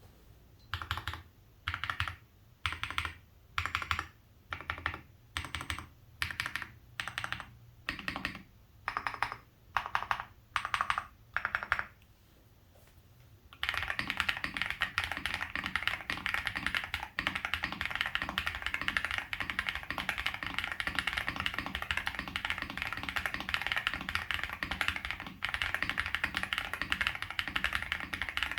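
Tiger Lite mechanical keyboard with lubed Gateron Baby Kangaroo switches on a polycarbonate plate, with SA keycaps. First single keys are pressed one at a time, well under a second apart. From about halfway through there is fast continuous typing.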